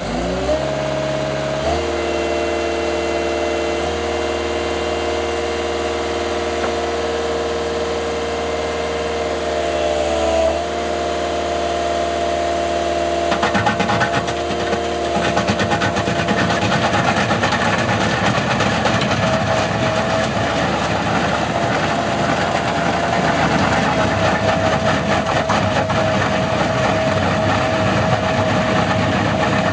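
Skid-steer loader engine running and driving the hydraulic asphalt planer, its pitch rising in the first couple of seconds and shifting about ten seconds in. From about 13 seconds a rough, continuous grinding joins it, typical of the toothed milling drum cutting into asphalt.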